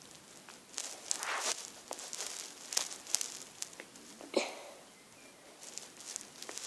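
Handling noise from the camera being held close over a wooden surface: faint rustling and scattered light clicks and taps, with a short scrape about four seconds in.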